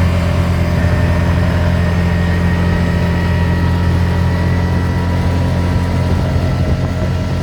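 Dune buggy's engine running loud and steady, heard from on board the buggy.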